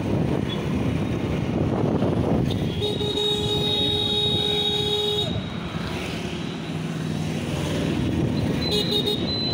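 Dense road traffic noise heard from a moving two-wheeler in city traffic. A vehicle horn sounds steadily for about two and a half seconds near the middle, and a second, shorter horn sounds near the end.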